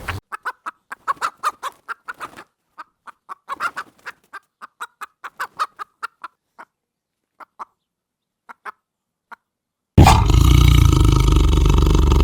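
Short clucking calls of a fowl-type bird, many in quick bunches at first and then fewer and more spaced out. About ten seconds in, a loud, continuous animal roar starts abruptly.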